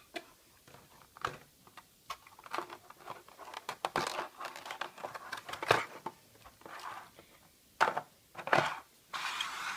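A boxed 1:500 scale model airplane being unpacked by hand: irregular crinkling and rustling of the packaging, broken by sharp clicks and scrapes, with a few louder snaps in the second half.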